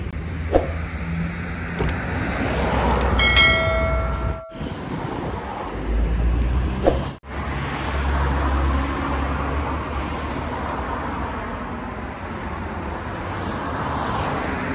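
Street ambience of road traffic, a steady low rumble with a few sharp clicks. About three seconds in, a single pitched beep lasts about a second.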